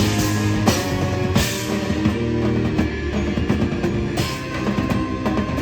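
Loud rock music with drum kit and guitar, played for a live show.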